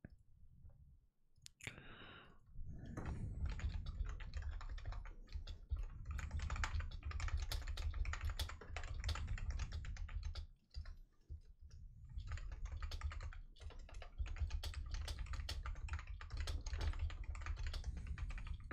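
Typing on a computer keyboard: fast runs of keystrokes with short pauses. They start after a couple of near-quiet seconds and a single click.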